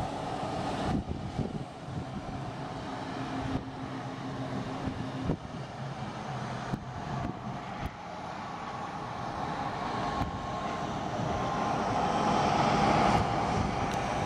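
Light piston-engine propeller airplane running at high power on its takeoff roll, a steady engine drone that grows louder over the last several seconds as it nears. The sound changes abruptly a few times.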